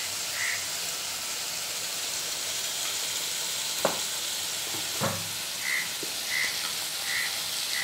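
Chopped onion, tomato and green chilli frying in oil in a pan with a steady sizzle as turmeric powder is stirred in. The metal spoon knocks against the pan twice, a little after the middle.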